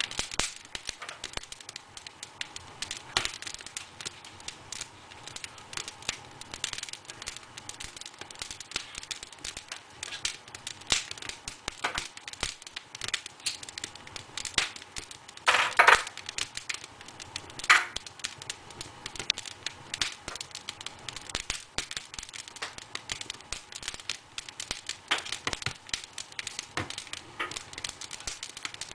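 Wood fire crackling, with irregular sharp pops and snaps throughout. About halfway through there is a louder noise lasting about half a second.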